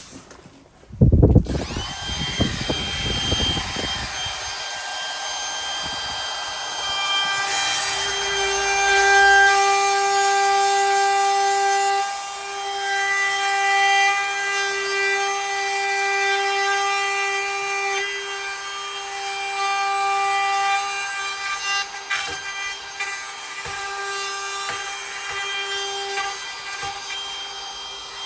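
Electric router started about a second in and running with a steady high whine, cutting the latch mortise into the edge of a wooden door through a jig; the loudness rises and falls as the bit works through the wood.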